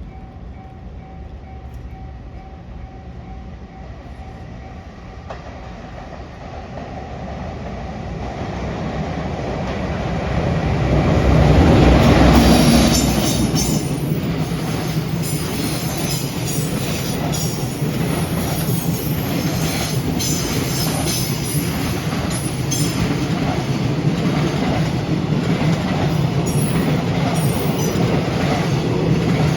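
JR Freight EF210 electric locomotive hauling a freight train over a level crossing. The rumble builds for about ten seconds and is loudest as the locomotive passes, about twelve seconds in. Then the wagons roll by in a steady run of wheel clicks over the rail joints.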